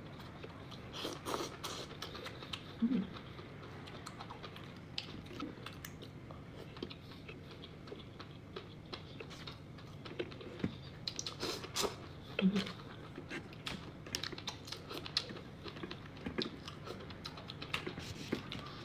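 A person chewing eel sushi close to the microphone, with irregular wet mouth clicks and smacks, busiest past the middle.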